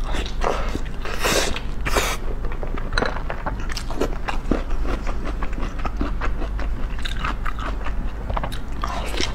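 Close-miked eating of a large steamed bun (baozi): biting and chewing, with many short irregular mouth clicks and smacks.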